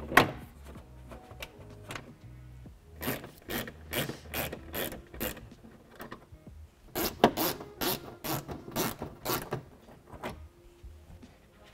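Ratchet wrench with a 7 mm socket clicking in quick runs, about four clicks a second, as it backs out the fender liner screws. There are two runs: one about three seconds in and a longer one about seven seconds in.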